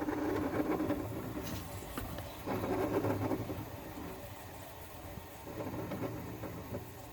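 R22 refrigerant gurgling and hissing inside a General Electric 5,100 BTU air conditioner just after its compressor is switched off, as the pressures equalize. It swells briefly about two and a half seconds in, then fades.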